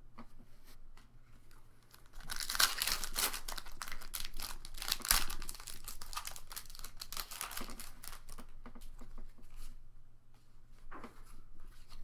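Foil booster pack of trading cards being torn open and crinkled, the crackling loudest for a few seconds about two seconds in, then dying down to softer rustling.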